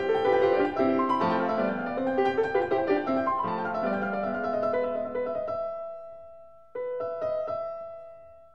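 Background piano music: a busy run of notes that settles and fades on a held chord, then a fresh chord struck near the end.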